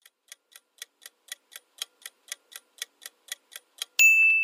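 Countdown-timer sound effect: clock ticking, about four ticks a second, then a loud ringing ding about four seconds in as the time runs out.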